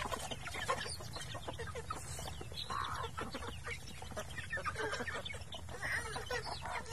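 A flock of chickens clucking in short scattered calls while feeding, over a steady patter of small clicks.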